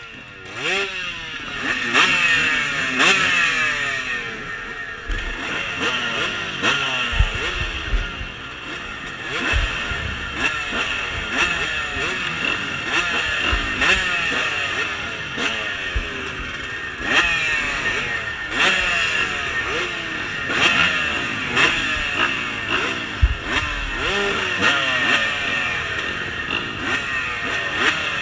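A line of dirt bike engines, the rider's Yamaha YZ250 two-stroke among them, idling and being blipped at the starting gate: many overlapping revs rising and falling again and again.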